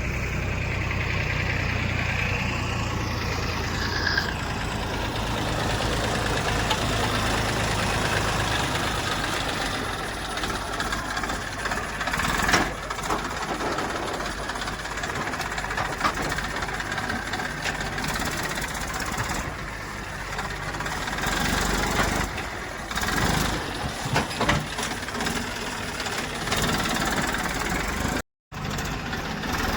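Diesel engines of a backhoe loader and farm tractors running steadily, with a sharp clank about twelve seconds in.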